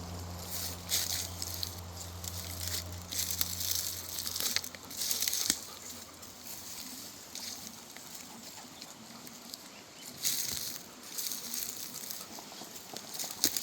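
Woodland river ambience: a faint steady wash of running water, broken by irregular bursts of high hiss. A low hum fades out about three and a half seconds in.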